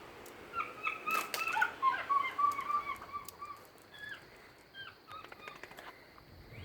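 Quick, high chirping calls, a dense run in the first half, then a few scattered single chirps, with faint clicks.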